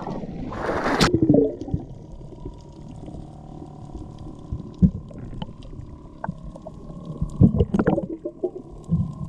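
A diver splashes into the sea about a second in, then the sound turns underwater: a muffled low rumble with a steady faint hum and scattered faint clicks, and a few dull gurgling thumps near the end.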